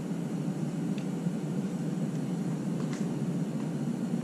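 Steady background hiss with a couple of faint clicks, about one and three seconds in.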